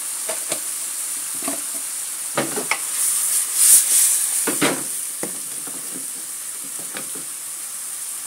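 Shrimp, chillies and garlic sizzling in a wok, with a wooden spatula scraping and stirring through them in scattered strokes. The sizzle swells and the stirring is busiest a little after halfway.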